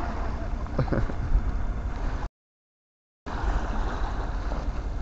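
Wind rumbling on the microphone over small waves washing onto a pebble shore, with a couple of short knocks just under a second in. The sound cuts out completely for about a second midway, then the same wind and water noise resumes.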